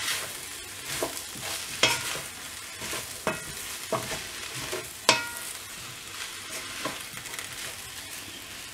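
Wooden spatula stirring and scraping potato, broccoli and spinach in a speckled enamel wok, with irregular knocks against the pan over a steady frying sizzle; the sharpest knock comes about five seconds in.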